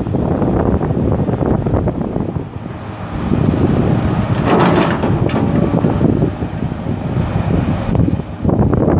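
Komatsu PC200LC-8 excavator's six-cylinder turbo diesel running under hydraulic load as the boom lowers and the stick folds in. A brief louder rasp comes about halfway through.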